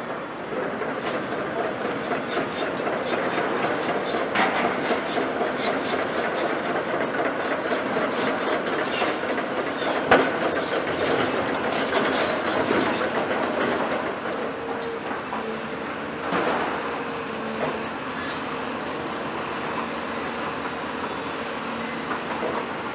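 CAT 340 long-front demolition excavator travelling on its steel crawler tracks: rapid clanking and squeaking of the track links over its running diesel engine, with one sharp knock about ten seconds in. The clatter eases off after about fourteen seconds, leaving the steadier engine sound as the machine stops and raises its boom.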